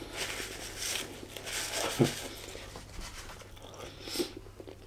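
A man chewing food, with soft, irregular eating and mouth noises and a few small clicks. A paper napkin rubs across his mouth near the start.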